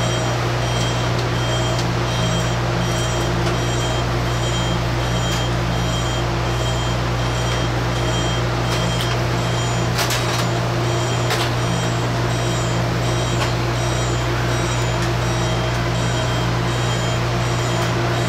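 Steady low electrical hum of a parked passenger train car's onboard equipment. A faint high beep repeats about twice a second through the first half, and a couple of light clicks come from tray tables and seat fittings being handled.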